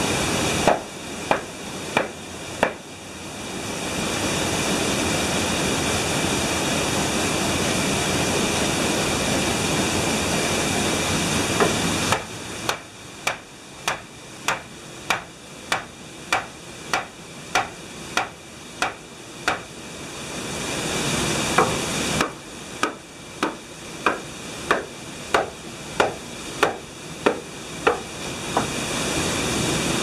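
Axe blows chopping into freshly sawn pine boards, sharp strikes at about two a second in three runs. A steady rushing noise fills the gaps between the runs.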